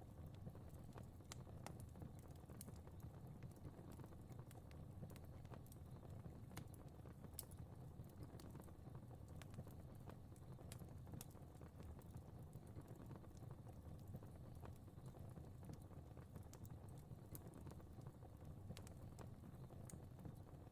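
Fire crackling faintly: irregular small pops and snaps scattered over a low, steady rumble of flames.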